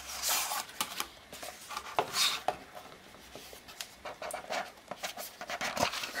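Small cardboard watch boxes being handled on a wooden table: scattered light taps and knocks, with cardboard rubbing and sliding as a box's lid is worked open.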